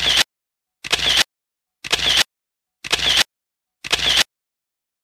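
Camera shutter click sound effect, repeated five times about once a second, each a sharp double click with dead silence between.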